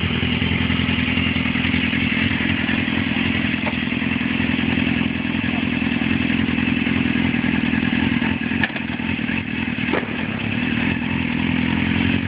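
Suzuki GSX-R 600 inline-four motorcycle engine idling steadily through an aftermarket slip-on exhaust, with a couple of light knocks about eight and a half and ten seconds in.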